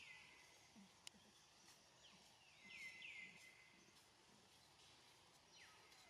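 Near silence with faint outdoor ambience, broken by a few short, high chirping calls that drop in pitch, a cluster of them about two to three seconds in and more near the end.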